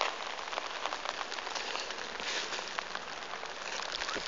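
Rain pattering steadily, with many small drops ticking.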